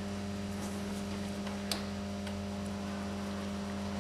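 Steady electrical mains hum, with one short click a little under two seconds in.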